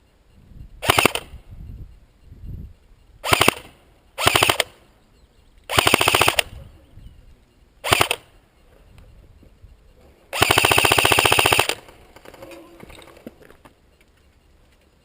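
Airsoft gun firing in rapid full-auto bursts: six rattling bursts, mostly short, the last one held for about a second and a half.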